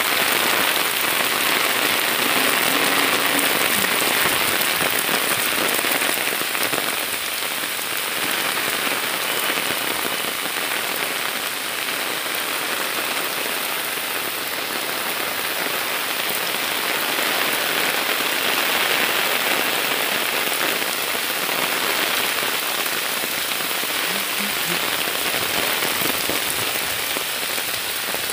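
Heavy monsoon rain pouring steadily onto flooded fields, standing water and a wet road: a dense, even hiss that eases a little midway and swells again.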